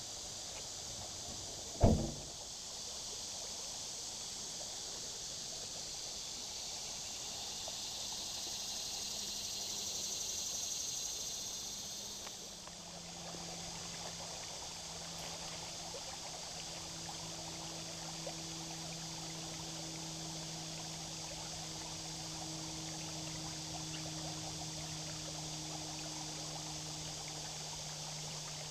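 Shallow river water running and trickling over flat bedrock, a steady hiss. A single sharp knock comes about two seconds in, and a faint low steady hum joins about halfway through.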